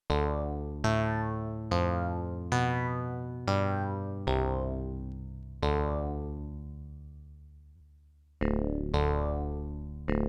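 Fred's Lab Manatee synthesizer playing a preset: a run of notes, each struck sharply and then fading. One note is left to ring out for nearly three seconds before two more strikes near the end.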